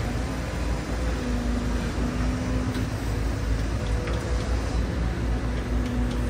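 Tracked excavator's diesel engine running steadily as the boom works, a continuous low rumble with a faint hum that comes and goes.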